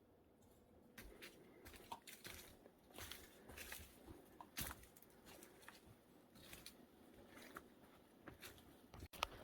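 Faint, irregular crunching footsteps on a path, starting about a second in, with a sharp click near the end.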